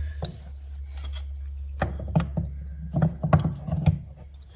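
Light clicks and knocks of metal transmission parts being handled and fitted, several small taps in the second half, over a steady low hum.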